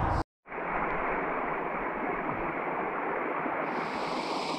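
A waterfall's rush cuts off abruptly a moment in; after a short gap, a shallow mountain stream runs steadily over rocks, getting brighter and hissier near the end.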